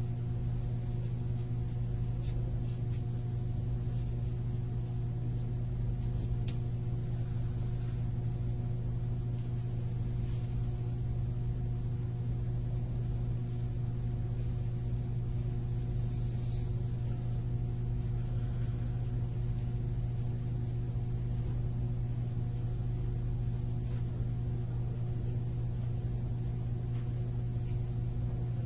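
Steady low electrical hum with several fixed higher overtones, unchanging throughout, with a few faint ticks.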